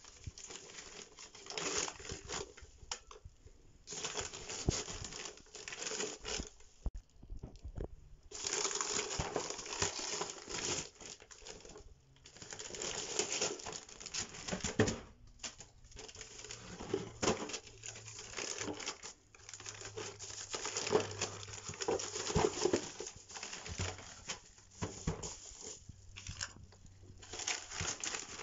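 Brown paper packaging being torn open and crumpled by hand, in irregular bursts of rustling and ripping with short pauses between.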